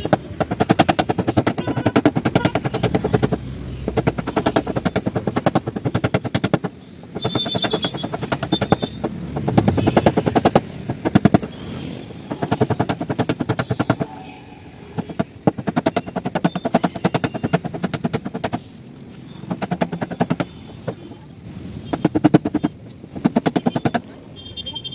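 Rapid light hammer taps on the metal tailgate of a Honda Jazz, coming in runs of several seconds with short pauses between. The dent is being tapped out without repainting, as in dry (paintless) dent repair.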